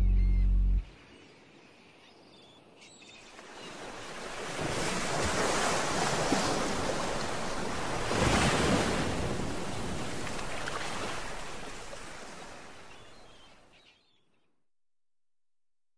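The soundtrack's song cuts off just under a second in. Then Caspian Sea surf washes up over a sandy beach: the rush builds from about three seconds in, is loudest near the middle and fades out well before the end.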